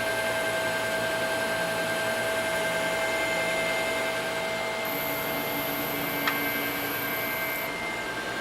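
Selective soldering machine running with a steady whirring hum and several steady tones. About five seconds in a high whine and a lower tone join for nearly three seconds as part of the machine moves, with a single click a little after.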